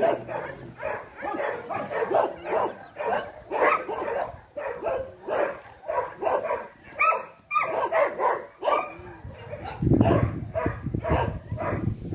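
A dog barking and yipping rapidly and repeatedly, about two to three calls a second, with a few higher, rising whines around the middle. Near the end a low rumble on the microphone comes in.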